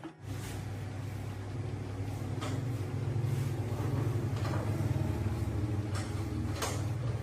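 An engine running steadily, a low even hum with a few faint ticks over it.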